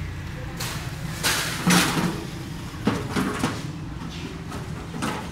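Household items being set down into a metal wheelbarrow: a string of separate knocks and clatters, the loudest about two seconds in.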